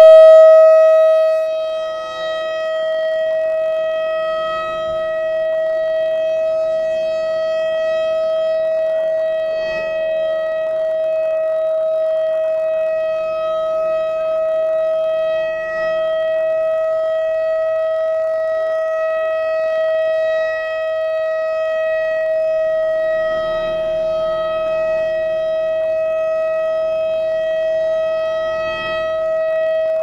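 Whelen 3000-series electronic warning siren sounding a steady single-pitch tone during a test, its rotating speaker array turning. It is loudest in the first second or so, then drops off and holds fairly even as the speakers turn away.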